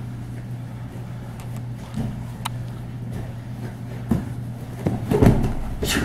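Jiu-jitsu grapplers' feet and bodies thudding and scuffing on a training mat. There are dull thumps about two and four seconds in, then a louder run of thumps near the end as one is taken down to the mat. A steady low hum runs underneath.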